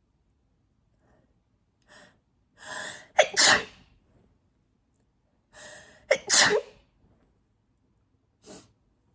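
A woman sneezing twice during an allergic sneezing fit. Each sneeze follows a quick gasping in-breath, one about three seconds in and the next about three seconds later. A short breath comes near the end.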